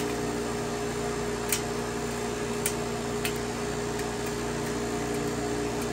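Gold Medal Econo Floss cotton candy machine running: a steady motor hum from the spinner head as it throws out floss, with a few sharp ticks.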